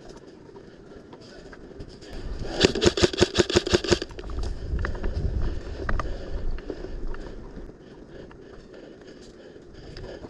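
Airsoft gun firing a rapid full-auto burst of about ten shots, about seven a second, lasting a little over a second, about two and a half seconds in. A few seconds of low rumbling follow.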